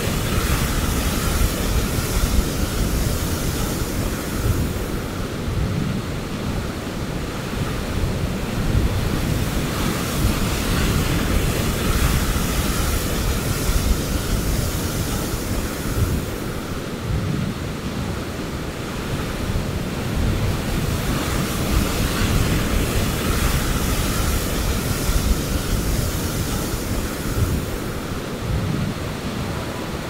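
Ocean surf breaking on a sandy and rocky shoreline: a continuous wash of waves that swells and eases every several seconds. Wind rumbles on the microphone underneath.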